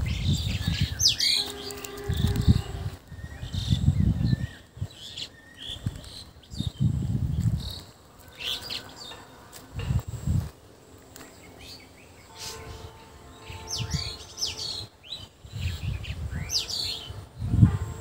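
Small birds chirping and calling in the trees: scattered short chirps and quick sliding notes throughout, with loud low rumbles of microphone noise that come and go every few seconds.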